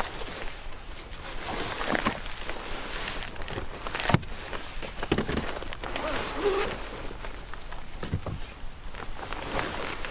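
Footsteps crunching and rustling on a forest floor, uneven and irregular, with one sharp knock about four seconds in.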